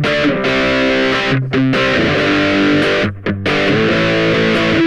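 Ibanez GAX30 electric guitar played through a Maniac OCD-style overdrive stacked with a Klon Centaur clone overdrive: distorted chords struck and let ring, several in a row with short breaks between them.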